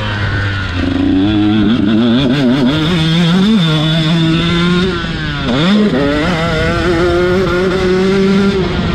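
KTM SX 125 two-stroke motocross engine running hard on a dirt track, revving up about a second in, its pitch wavering with the throttle over bumps. About halfway through the revs dip sharply and pick back up, then hold high and steady before easing off near the end.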